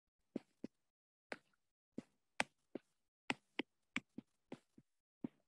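Stylus tapping and ticking on a tablet's glass screen during handwriting: about a dozen short, faint ticks at an uneven pace, a few each second.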